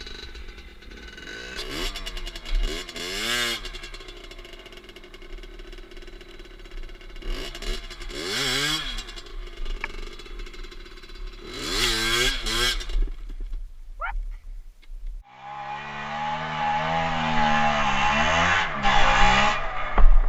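Rieju MRT SM motorcycle engine revving, its pitch rising and falling in several surges. About fifteen seconds in, the recording changes and the engine holds a steadier, louder note that climbs near the end.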